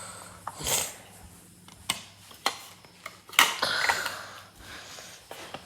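Plastic parts of a science kit being handled and fitted together: a series of sharp clicks and short scraping, rustling sounds, the loudest click about three and a half seconds in.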